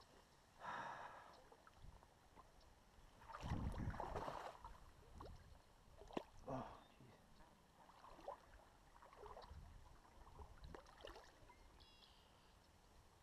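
Faint splashing and gurgling of shallow stream water, with a few short louder bursts, the loudest about three and a half seconds in.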